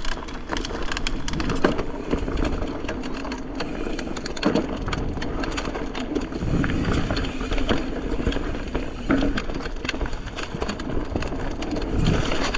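Mountain bike ridden fast down dirt singletrack: tyres rolling over dirt and roots, with the bike's chain and frame rattling in a steady stream of sharp clicks and knocks.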